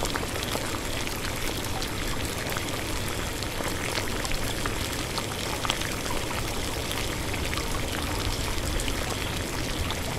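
Water pouring and trickling steadily through small plastic pipes into wet sand, with faint scattered drips.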